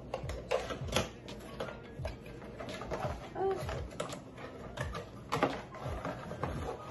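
A cardboard product box and its paper leaflet being handled and opened by hand: scattered taps, scrapes and paper rustles. There is a brief low tone about halfway through.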